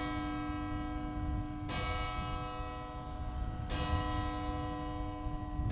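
A single church bell tolling, struck about every two seconds, each stroke ringing on until the next.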